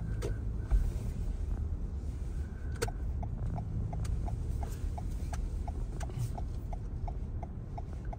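A car's turn-signal indicator ticking evenly, about three clicks a second, over the low hum of the car heard from inside the cabin.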